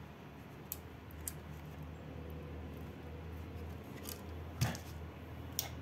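Faint handling of rigid 3D-printed PLA plastic parts: a few light clicks and taps as the pieces are moved and knock together, the loudest about four and a half seconds in, over a steady low hum.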